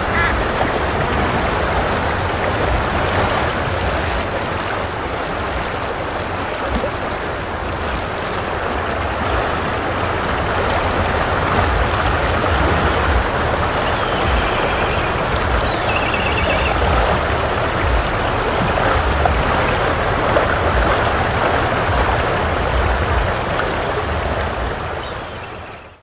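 Chuya mountain river running fast over its bed, a steady, full rush of water that fades out at the very end.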